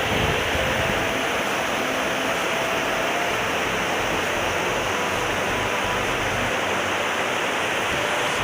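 Waterfall running steadily: an even, continuous rush of falling water.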